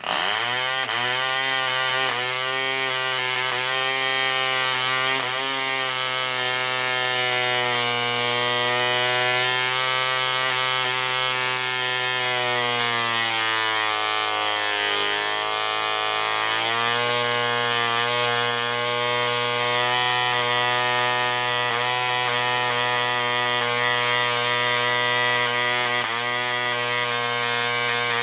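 Mills 2.4 cc model diesel engine running steadily at high speed with a buzzing note. About halfway through, its speed sags and then picks back up as the compression lever on top is adjusted by hand.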